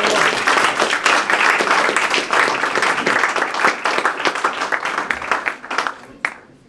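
Audience applauding, many hands clapping at once; the applause thins out and dies away near the end, with one last clap.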